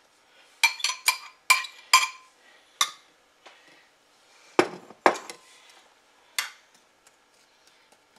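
A metal spoon clinking and scraping against a glass measuring bowl as diced apples are scraped out of it: a quick run of ringing taps from about half a second to two seconds in, then a few scattered duller knocks.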